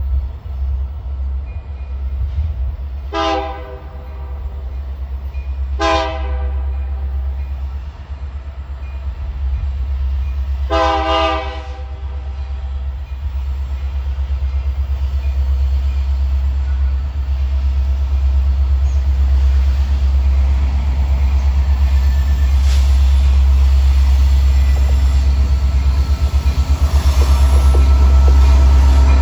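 Horn of an approaching EMD SD60M diesel locomotive sounding three blasts, two short ones about three and six seconds in and a longer one near eleven seconds. Under it the deep rumble of the train grows steadily louder as the locomotives draw near.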